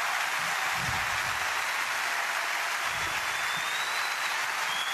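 Large crowd applauding steadily, a dense even clatter of many hands clapping.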